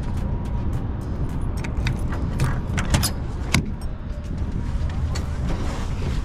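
Truck engine running with a steady low rumble, with a run of light clicks and rattles between about one and a half and three and a half seconds in.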